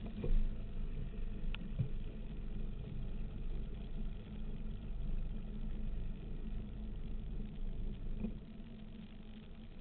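Performance powerboat running at speed: a steady engine drone under water and wind noise, with a sharp knock about a third of a second in. The sound drops a little near the end.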